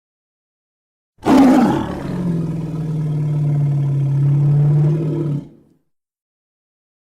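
Gorilla roar sound effect: one long roar that starts loud about a second in, then holds a steady low tone for a few seconds before breaking off.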